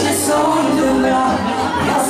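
Live band music amplified through PA speakers, with a woman singing.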